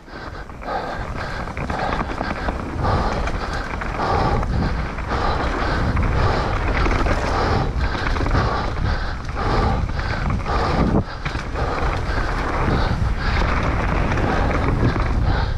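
Mountain bike riding down a rough trail: tyres rolling over dirt and rock and the bike rattling, with a steady rumble of wind on the microphone.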